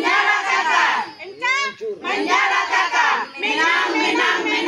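A crowd shouting and cheering together, many voices at once, with one shrill wavering cry standing out about one and a half seconds in.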